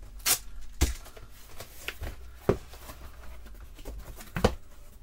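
Packing tape ripped off a cardboard box and the box flaps pulled open: a few sharp rips and cardboard knocks among rustling of the cardboard.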